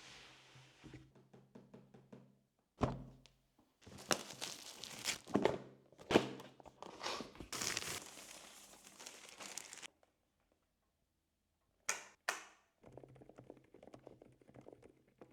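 Unboxing a mechanical keyboard: a thunk as the box is handled, then packaging crinkling and tearing for several seconds, two sharp knocks, and faint light clicking near the end.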